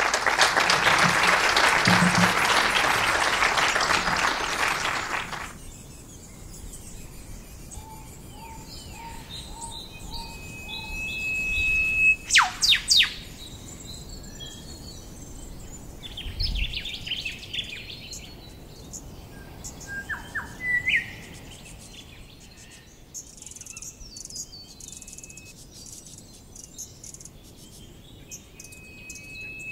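Audience applauding for about five seconds, then birds calling: scattered chirps, a short run of repeated notes, held whistles and a few sharp falling calls.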